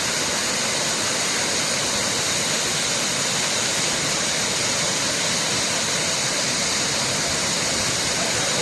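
Steady rush of water falling at Pongour Falls, an even hiss with no breaks.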